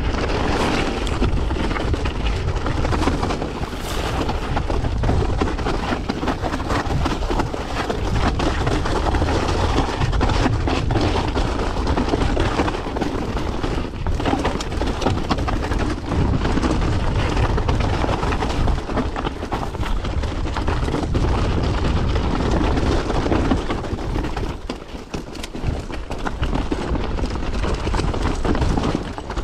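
Mountain bike descending a rocky trail: wind buffeting the camera microphone with a deep rumble, and tyres and frame clattering over rocks in a steady run of knocks and rattles. It eases briefly a few seconds before the end.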